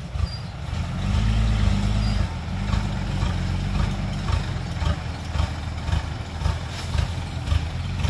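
Diesel engine of a small cab-over dump truck running under load as the truck pulls forward with its bed tipped up, spreading its load of soil. The engine rises in level about a second in, then settles to a steady run.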